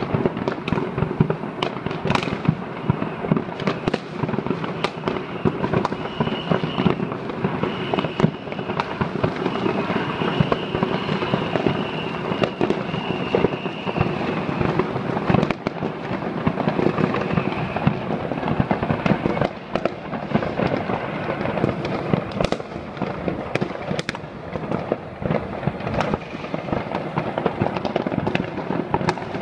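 Many consumer fireworks going off at once across a city: a dense, unbroken crackle of bangs, some near and some far. A high whistling tone runs for several seconds in the middle.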